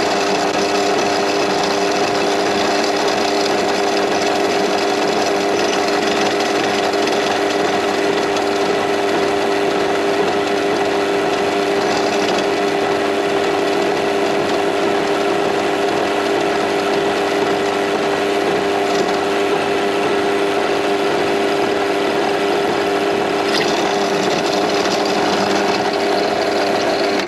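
Bench pillar drill running steadily, its 3 mm bit drilling down through the cast-iron tailstock of a mini lathe: an even motor hum under the noise of the cut, cutting off at the very end.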